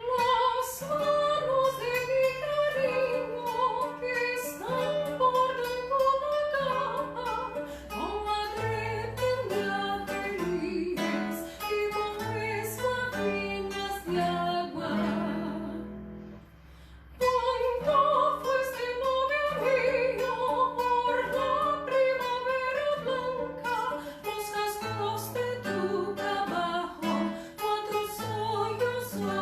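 A woman singing with vibrato to an acoustic guitar accompaniment. The music stops briefly about halfway through, then voice and guitar come back in.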